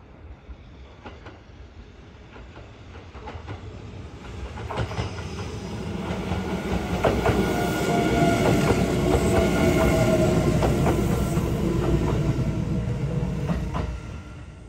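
Kintetsu 22600 series electric limited express train approaching and passing close by, its wheels clicking over rail joints with a steady whine over the running noise. It grows louder over several seconds, is loudest as the cars go by, and falls away near the end.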